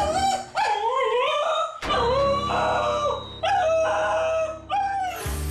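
Cocker spaniel howling in a string of about five wavering, drawn-out cries with short breaks between them: the anxious howl it gives when left alone.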